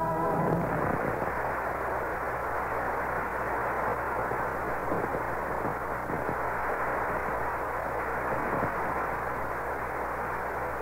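Studio audience applauding as the last note of a song dies away about half a second in: a steady, dense clatter of clapping, muffled and narrow-sounding from the old broadcast recording.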